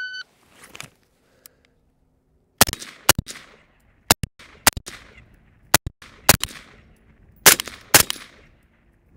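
A shot timer gives one short start beep. After about two and a half seconds an AR-15-style rifle fires a string of controlled pairs, two shots in quick succession with short gaps between pairs, each shot sharp and trailed by a brief echo.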